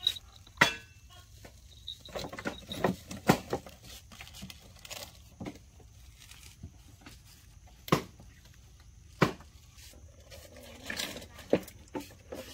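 Scattered sharp knocks and clicks, one every second or few seconds, from baby macaques clambering over a hollow plastic toy tricycle.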